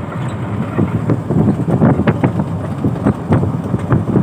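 Wind buffeting the microphone as a low rumble, with irregular crackles and rustles scattered through it.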